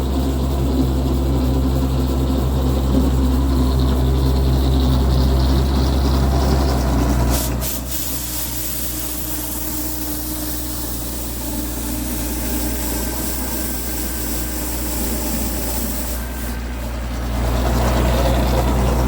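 An engine running steadily with a low hum. About seven seconds in the sound drops suddenly to a quieter, different mix, then comes back up near the end.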